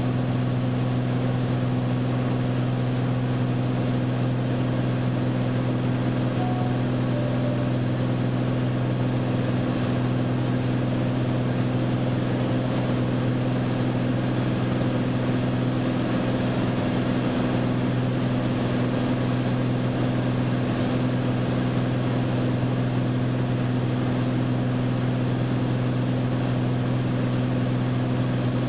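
Single-engine light aircraft's engine and propeller droning steadily at constant power, heard from inside the cockpit as an even, low hum.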